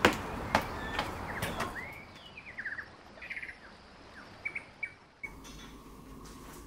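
Small birds chirping, with a few sharp knocks in the first two seconds. A little after five seconds this gives way to quiet indoor room tone with a faint steady hum.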